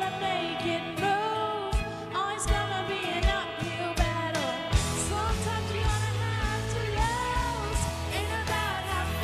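Two girls singing a pop duet into handheld microphones over backing music with a steady drum beat.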